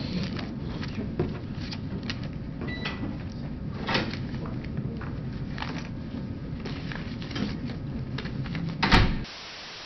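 Courtroom room noise during a recess: a steady low rumble with scattered clicks and knocks of things being handled. Near the end comes a sharp knock, and then the sound cuts to a steady hiss where the court recording jumps at a pause.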